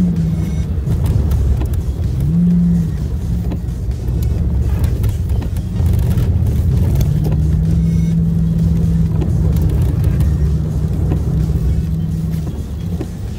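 Car driving on wet road, heard from inside the cabin: a steady low engine and tyre rumble, with a low hum that rises in pitch about two seconds in and then holds steady.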